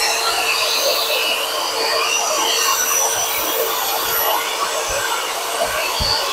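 Eibenstock KBM 50P magnetic core drill's brushed motor running steadily at speed, turning free without cutting: a constant whine over a hiss.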